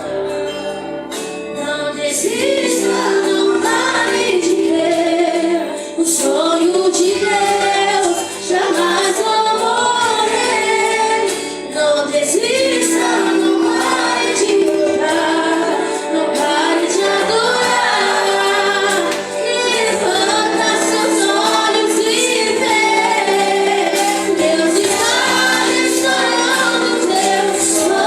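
Christian worship song performed with singing voices over instrumental accompaniment, the melody rising and falling in sung phrases over steady held chords.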